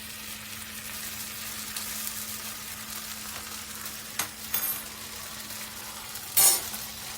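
Ham slices frying in cooking oil in a frying pan, a steady sizzle. A few light clicks come about four seconds in, and a louder brief clatter near the end.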